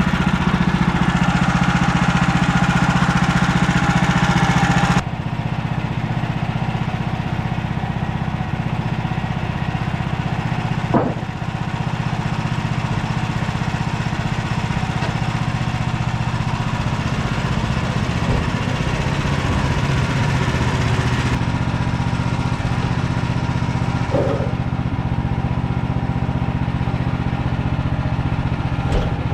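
Woodland Mills HM130 Max sawmill's gas engine running steadily. The sound changes abruptly about five seconds in and again about twenty-one seconds in.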